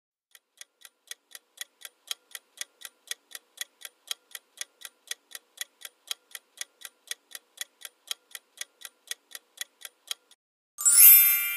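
Countdown-timer ticking sound effect, an even clock-like tick about four times a second that grows louder over the first couple of seconds and runs for ten seconds while the answer time runs out. Near the end a bright ringing chime sounds, marking that time is up.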